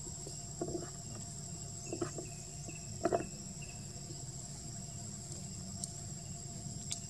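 Steady, high-pitched drone of an insect chorus in forest. A few short soft knocks come about half a second, two seconds and three seconds in.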